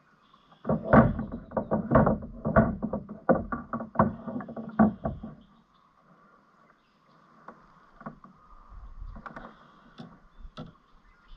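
Handling noise in a kayak as a just-caught bass is dealt with: a rapid, irregular flurry of knocks, thuds and rustling against the boat and gear for the first few seconds, then fewer, lighter clicks and rustles.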